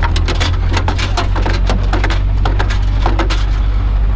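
Irregular clatter of hard objects being rummaged through and knocked about, many quick clicks and knocks in no steady rhythm, over a steady low hum.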